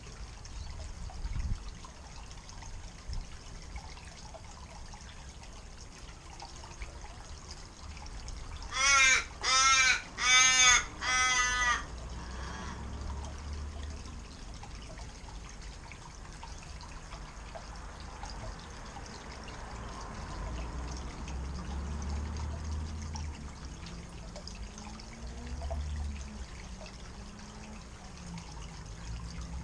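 A crow caws four times in quick succession, loud and harsh, over the steady trickle of a garden pond's rock waterfall.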